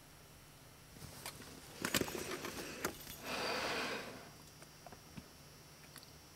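Soft clicks and rustling close to the microphone, then a breathy rush lasting about a second, like a sniff or exhale.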